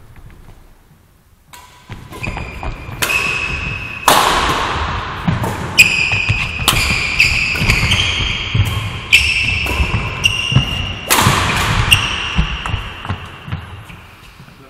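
Badminton rally: a shuttlecock is struck back and forth about a dozen times, each racket hit a sharp ping a second or less apart, with the echo of a large hall. The players' feet thud on the court floor underneath. The rally starts about a second and a half in and dies away shortly before the end.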